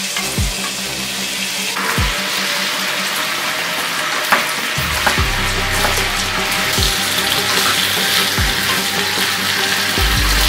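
A whole chicken with lemongrass stalks sizzling as it fries in a wok, the sizzle growing louder about two seconds in. Background music with a deep, regular beat plays under it.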